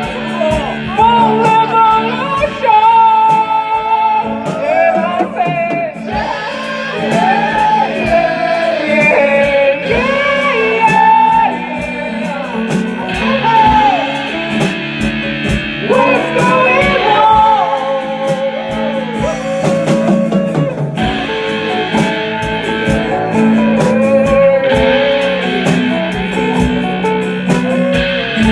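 Amateur band playing a rock song live: guitars and a lead melody, sung or played, that bends and wavers over steady accompaniment and regular beats.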